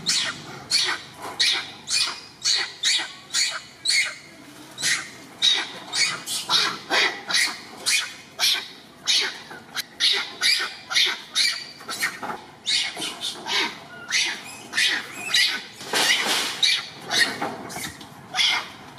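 Macaque calling in a rapid, unbroken series of short, high-pitched calls, two or three a second.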